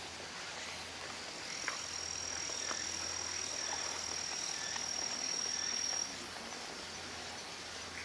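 A steady, high-pitched insect call, one unbroken tone that starts about a second and a half in and stops suddenly about six seconds in, over steady outdoor background noise.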